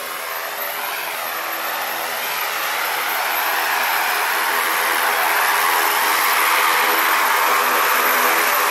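Propeller engine of a single-engine skydiving plane running at idle on the ground, a steady whine and rush that grows steadily louder as the plane is approached.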